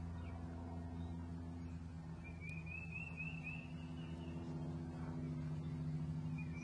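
A steady low hum, with a short trill of quick high bird notes about two seconds in and again at the end.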